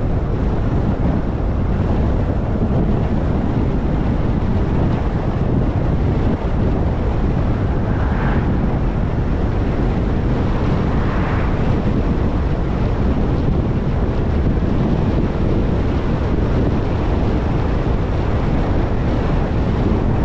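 Steady wind buffeting the microphone of a camera on a moving car, mixed with road rumble, heavy and low. Two brief swells of higher hiss come near the middle.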